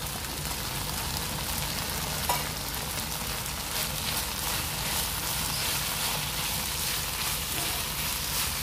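Chicken keema sizzling and crackling as it fries in a pot, the water cooked off so the mince is browning in its oil. One sharp click about two seconds in.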